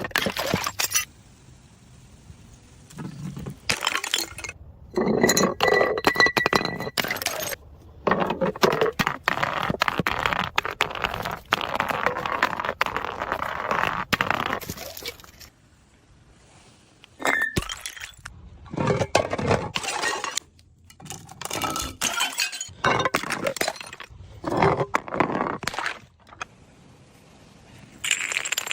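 Glass bottles clinking, cracking and shattering in a run of separate bursts of one to a few seconds each, with short pauses between.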